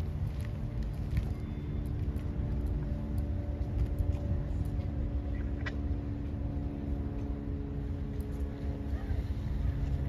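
Diesel train engine running: a steady low rumble with a constant drone over it.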